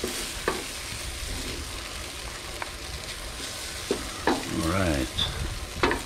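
Bean filling sizzling steadily in a frying pan, with a utensil stirring it and knocking and scraping against the pan several times to keep it from sticking.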